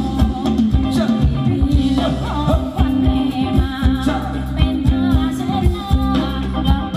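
Live band playing Thai ramwong dance music through a PA, with a singer over a steady drum beat.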